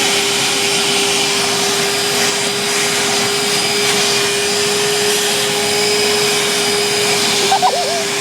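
Vacuum cleaner running steadily: an even rushing hiss with a constant motor whine.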